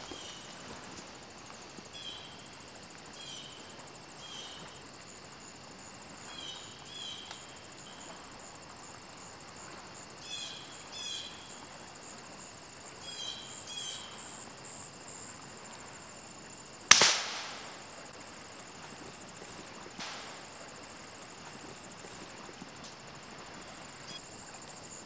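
A single .22 LR rifle shot, a sharp crack with a short ringing tail, fired at a ruffed grouse about two-thirds of the way through. Short high chirps every second or two and a steady high whine run underneath.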